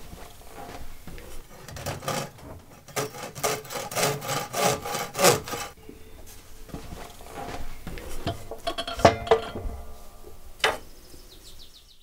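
A hand tool worked in rapid strokes on a peeled wooden pole clamped in a vise, with rasping, scraping sounds. There are a few looser strokes afterwards and two sharp knocks near the end.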